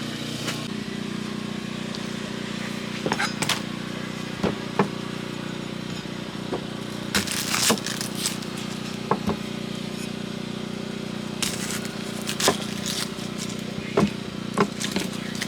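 Ground beef cooking in a covered pan over a camp stove flame, with sharp pops and crackles coming irregularly, over a steady low mechanical hum.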